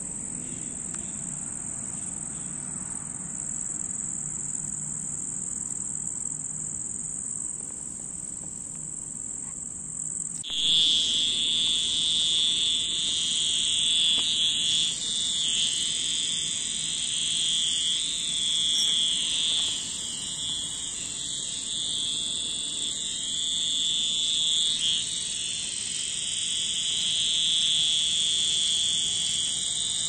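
Cicadas shrilling: a steady, very high buzz, joined suddenly about ten seconds in by a louder, lower buzz that swells and fades.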